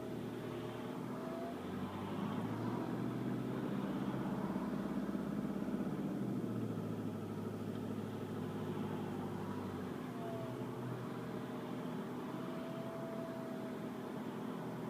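VW Golf Mk5 2.0 TDI diesel engine running, its note swelling from about two to six seconds in, with a thin whine that sounds briefly at the start and again from about ten seconds in. The owner tags the whine as a turbo whistle.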